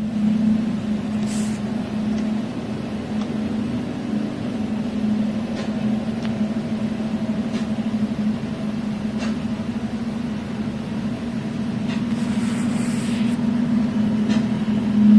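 A vehicle engine running at steady revs: a constant, unchanging hum, with a few faint clicks.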